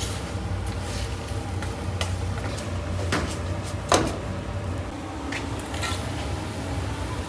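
Kitchen work sounds: scattered clinks and knocks of dishes and utensils over a steady low hum, the loudest a sharp clink about four seconds in.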